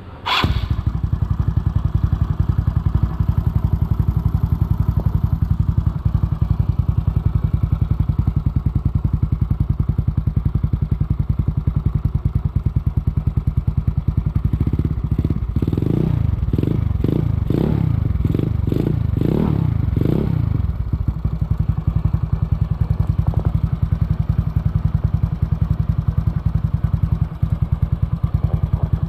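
Yamaha Mio scooter's single-cylinder four-stroke engine, bored to 160cc and breathing through a ReplicaPro 'silent killer' straight aftermarket exhaust, fires up just after the start and idles with a steady low beat. Around the middle it is revved in a quick series of about eight throttle blips, then settles back to idle.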